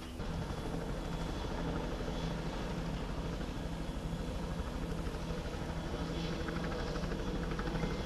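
An engine running steadily with a low hum and a fast, even beat.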